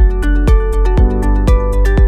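Background music with a steady beat, about two strong beats a second, over held chords and a deep bass.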